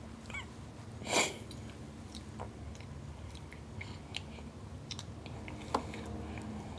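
A toddler chewing a mouthful of broccoli, with small wet mouth clicks and smacks, and a short rush of noise about a second in.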